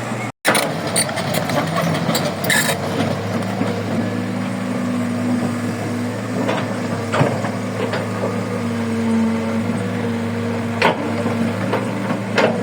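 Heavy diesel engine of the construction machinery running steadily, with a few sharp knocks and clanks scattered through. The sound drops out briefly about half a second in.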